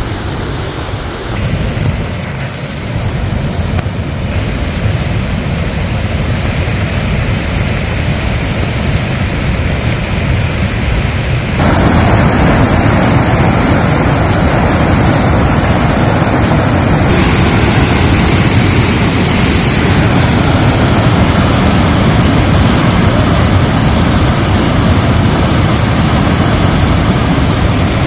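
Swollen, muddy floodwater rushing, a steady loud wash with wind buffeting the microphone. About twelve seconds in it turns suddenly louder and hissier as the water churning and pouring over a weir is heard up close.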